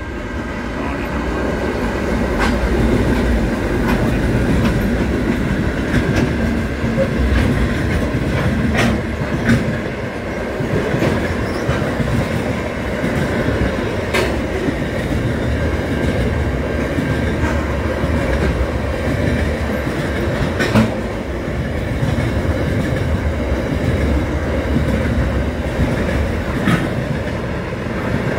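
Pacific National intermodal freight train's container wagons rolling past close by, a steady rumble that builds over the first couple of seconds. Sharp wheel clacks over the rail joints come every few seconds.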